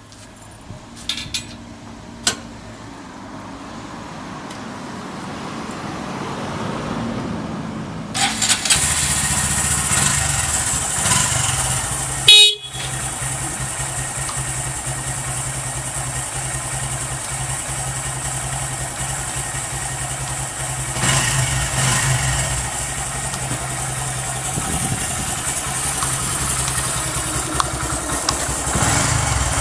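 Honda Grom's single-cylinder engine started on the electric starter, catching at once about eight seconds in, then idling steadily. A few clicks come before the start, and there is one brief loud sound about four seconds after the engine catches.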